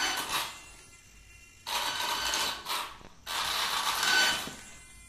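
RC truck's electric motor and gear drivetrain running in short stop-start bursts of about a second each as throttle and steering are worked from the radio, showing the relayed radio link is controlling the car.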